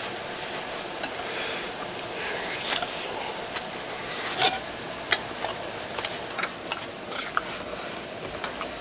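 Light clinks and taps of chopsticks and aluminium camping cookware as a pot lid or pan is lifted off and set aside, the sharpest clink about four and a half seconds in. A steady hiss of a lit camp burner runs underneath, which he calls noisy.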